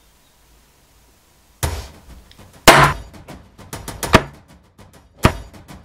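Hammer striking a steel letter punch held on a bronze penny on a wooden tabletop, stamping letters into the coin. After a short silence come four sharp metallic strikes about a second apart, the second the loudest, with lighter taps between them.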